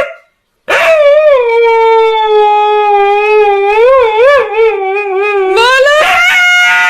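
A dog howling: after a brief silence, one long howl with a wavering pitch, then a second howl starts near the end.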